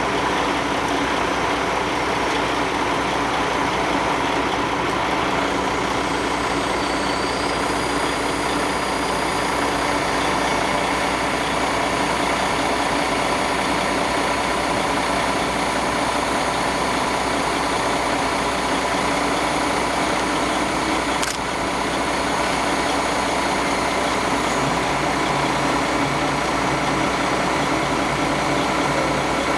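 A heavy machine's engine running steadily at a fast idle, with one brief click about two-thirds of the way through.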